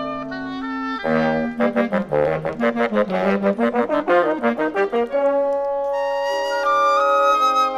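Woodwind quintet of flute, oboe, clarinet, bassoon and French horn playing. A held chord gives way about a second in to some four seconds of quick, short detached notes, then long sustained notes return.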